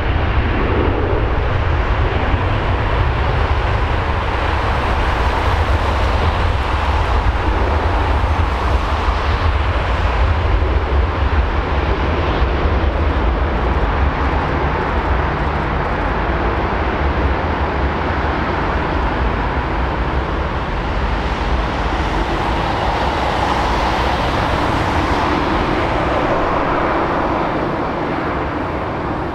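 Jet engines of airliners on the taxiway and runway: a steady jet roar with a deep rumble underneath, easing slightly near the end.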